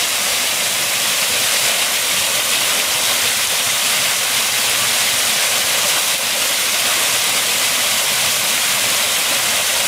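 Small stepped waterfall: water pouring over rock ledges and splashing into the pool below, a steady loud rush.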